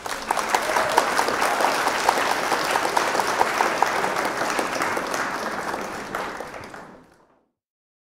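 Crowd applause: many people clapping together in a dense, steady patter that fades out and stops about seven seconds in.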